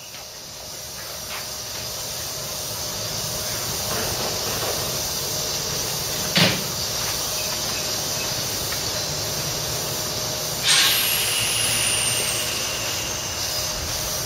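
Nankai 6200 series (50 subseries) electric train standing at a platform with its equipment running steadily. A single sharp clunk comes about halfway through, and a few seconds later a loud burst of air hiss, as on brake release. A steady high whine follows as the VVVF inverter-controlled train starts to pull away.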